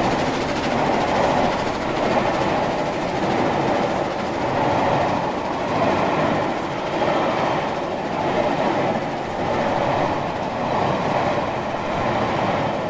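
Train rolling along the rails: a steady rumble and hiss that swells and eases about every two seconds.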